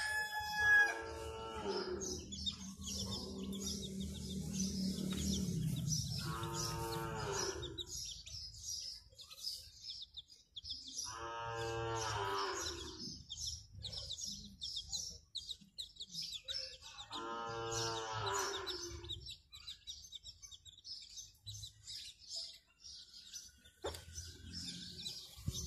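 Young chicks peeping rapidly and continuously. A longer, deeper farm-animal call cuts in three times, each lasting about a second and a half, spaced five to six seconds apart.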